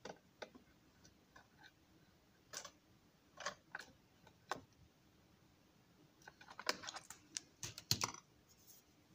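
Light clicks and taps of hands handling and fitting the wall pieces of a model engine house. A few single taps come in the first half, then a quick flurry of clicks near the end.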